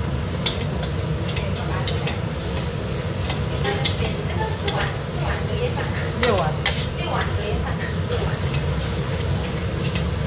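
Minced ginger and garlic sizzling in hot oil in a wok while a metal spatula stirs and scrapes them, with frequent sharp clicks of the spatula against the wok.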